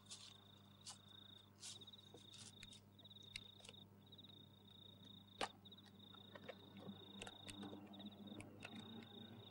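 Near silence: faint background hum, with a thin high trill that keeps breaking off and starting again, and a few scattered faint clicks.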